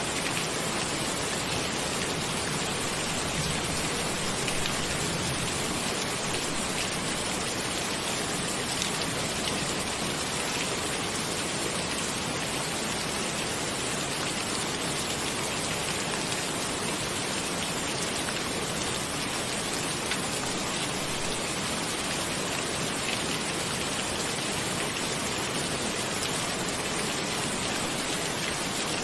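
Steady rain falling: a dense, even hiss of many drops that stays level throughout.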